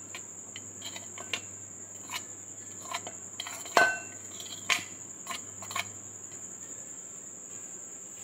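A spoon scraping boiled rice off a ceramic plate into a glass bowl, with several light clinks against the dishes over the first six seconds, the loudest about four seconds in. A steady high-pitched whine runs underneath.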